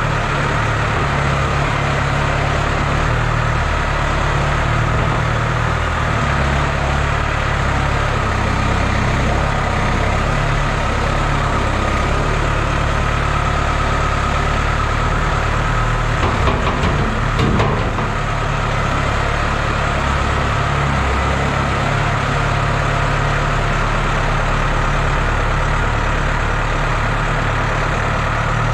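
Farm tractor's diesel engine running steadily while its front loader pushes cow manure, with a brief clatter about two-thirds of the way through.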